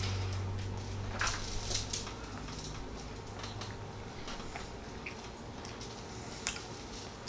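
Quiet eating sounds: a few faint clicks and taps of children chewing and handling food at a plate, over a low room hum that fades after the first second or so.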